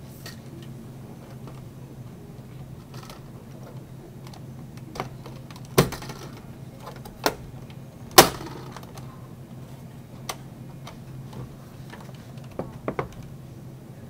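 Sheet-metal case of a slim desktop computer being handled and shifted on a desk: a scattered series of sharp clacks and knocks, the loudest about six and eight seconds in, with a quick double knock near the end, over a steady low hum.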